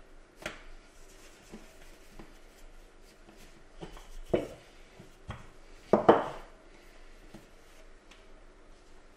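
Wooden rolling pin rolling and knocking on a countertop as bread dough is rolled flat, with a few scattered knocks and thuds, the loudest about six seconds in.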